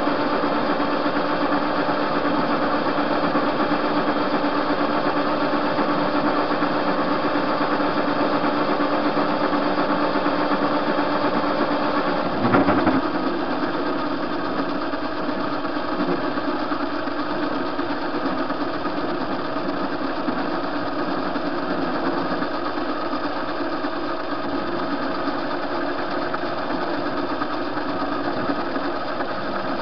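TV-16 benchtop metal lathe running with its chuck spinning a bar, a steady mechanical whir with a hum. About twelve seconds in comes a brief louder clatter, after which one of the humming tones drops out and the running sound is a little quieter.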